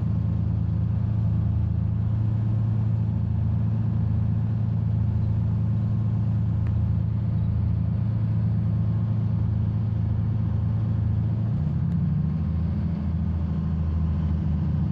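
Boat engine running at a steady speed, a low continuous drone, shifting slightly in pitch near the end.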